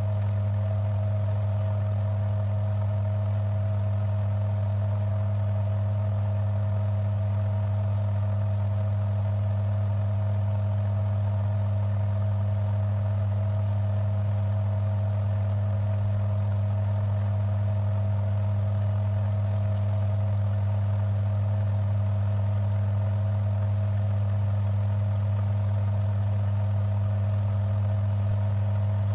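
Electric motor of a Timken-type oil friction tester running steadily under a load of eight weights, turning a brass roller against the test block in engine oil: an even hum with a strong low note and a fainter higher tone.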